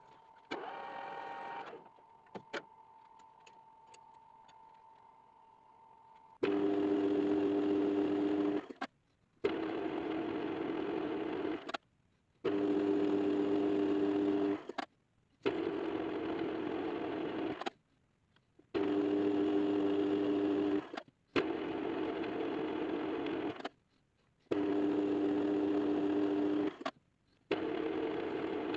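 Electric motor of a machine tool switching on and off repeatedly in runs of about two seconds, with short silences between. Every other run carries a stronger steady hum.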